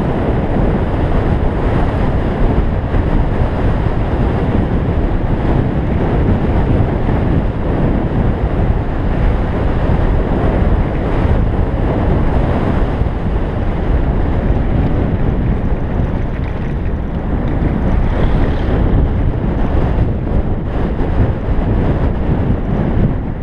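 Loud, steady rush of wind buffeting the microphone of a handlebar-mounted camera on a road bike descending at speed.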